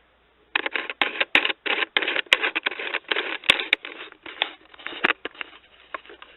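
Rapid irregular clattering and rustling with a few sharp clicks, the handling noise of a camera being fitted onto a tripod. It fades to a faint rustle near the end.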